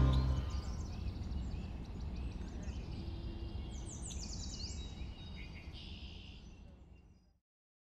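Outdoor ambience with a low, steady rumble of background noise and songbirds calling. A quick run of high chirps comes about four to five seconds in, then a short trill, and the whole fades out near the end.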